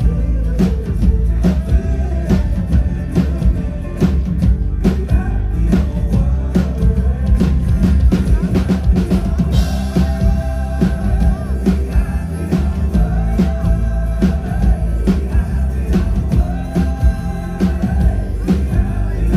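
Live pop-rock band playing, amplified: a steady drum-kit beat with kick drum and snare over heavy bass, with a singing voice in places.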